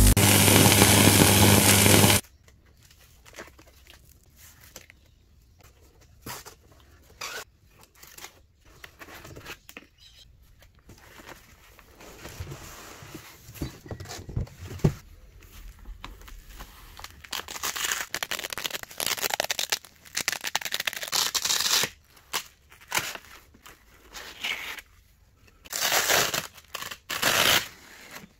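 A loud burst of static-like intro noise for about two seconds, then unpacking sounds: packaging tearing and crinkling in irregular bursts, louder in clusters toward the middle and near the end.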